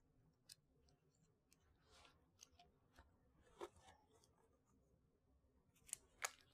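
Near silence: room tone with a few faint scattered clicks and soft rustling from hands handling small medical supplies.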